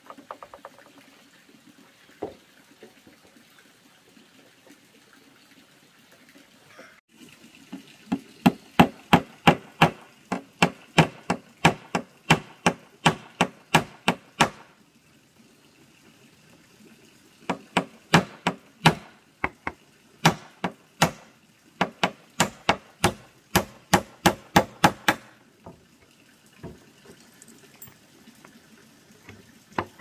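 Rapid, even blows of a tool striking wood, about three a second, in two long runs with a pause between. Scattered single knocks come before and after, over a faint steady rushing.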